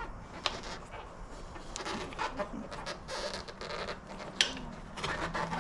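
Rubber mobility scooter tire being worked off its wheel rim: scattered creaking and rubbing of the bead against the rim. There are two sharp clicks, one about half a second in and a louder one a little past four seconds.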